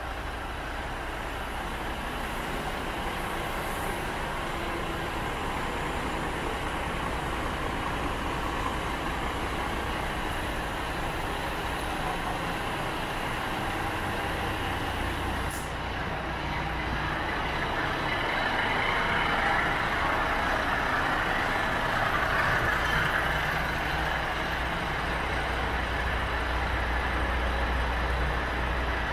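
Scania G400 tipper's 400 bhp turbocharged straight-six diesel idling steadily, getting somewhat louder in the second half, with a single click about halfway through.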